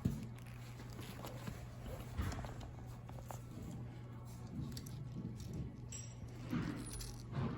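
Faint, scattered clicks and light knocks of a frayed bicycle cable and small tools being handled while the cable is worked through a small hole on the bike, over a steady low hum.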